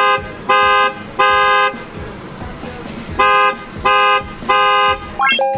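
Newly installed aftermarket horn on a Tesla Model 3 honking in two groups of three short blasts, each blast two tones sounding together. A short rising sweep begins just before the end.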